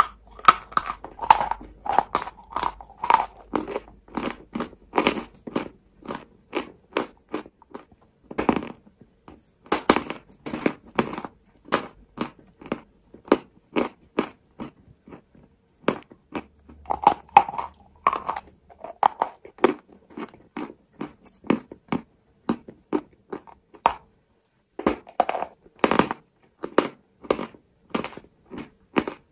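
Close biting and chewing of white edible chalk cubes: a run of sharp, dry crunches, several a second, with a few short pauses between bites.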